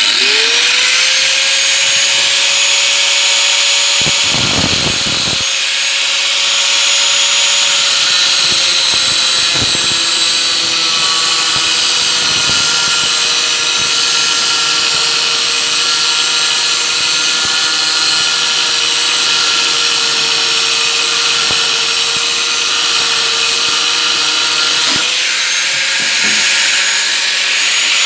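An angle grinder switches on and spins up to a steady high whine, then runs with a harsh grinding hiss as it cuts the copper windings off microwave fan motors. Its pitch sags a little at times as the disc bites.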